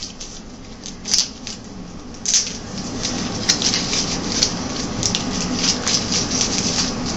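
Dry, papery husk of a tomatillo crackling and rustling as it is peeled off by hand. A few separate crackles come first, then about three seconds in they turn into a dense, steady run of crinkling.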